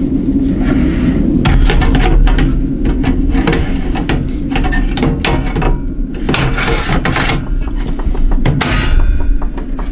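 Irregular clicking and clattering of metal and hard plastic parts being handled and fitted, over a steady low hum.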